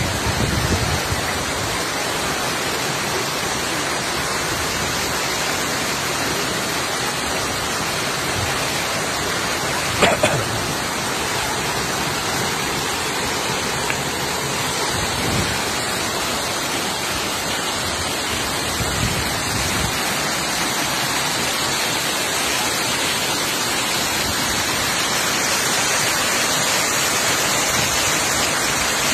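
Waterfall rushing steadily, a dense, even roar of falling water. One short knock about ten seconds in.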